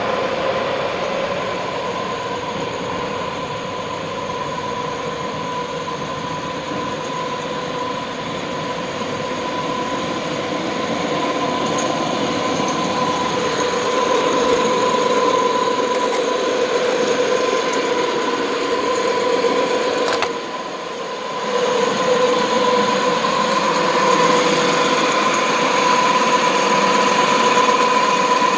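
Concrete grinding machine running with a dust-extraction vacuum attached: a steady whine over a broad rushing noise. It dips briefly a little past two-thirds of the way through, then comes back.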